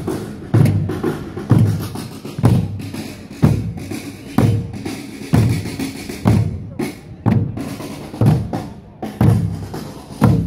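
A group of Korean buk barrel drums beaten with sticks while marching: a heavy beat about once a second, with lighter strokes in between.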